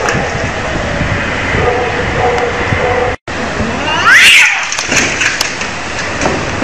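Steady noisy background, broken by a brief dropout a little past three seconds. About four seconds in a cat gives one loud yowl that glides in pitch.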